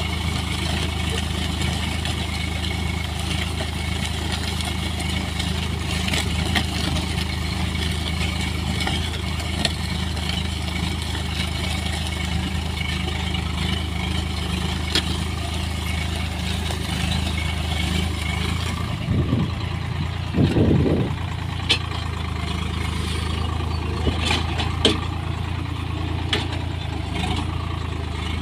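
Swaraj 744 FE tractor's three-cylinder diesel engine running steadily under load while pulling a reversible disc plough. A few brief louder bumps and knocks come about two-thirds of the way through.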